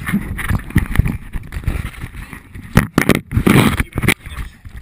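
Handling noise on an action camera: skin and fingers rubbing, scraping and knocking against the camera. There are many irregular knocks, and a longer, louder stretch of rubbing about three and a half seconds in.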